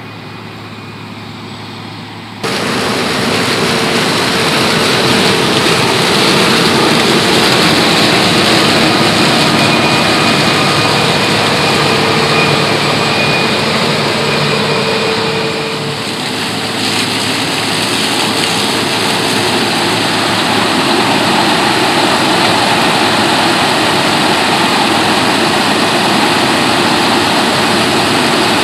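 Claas Lexion 480 combine harvester running under load while cutting sunflowers with its header: a loud, steady mechanical noise of engine and threshing machinery with a whine in it. The noise comes in sharply about two seconds in, after a quieter steady hum.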